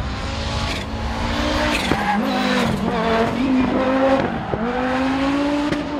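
Audi Quattro S1 rally car's turbocharged five-cylinder engine driven hard through a corner, the pitch dropping and climbing again as the driver lifts and changes gear, with a few sharp cracks along the way.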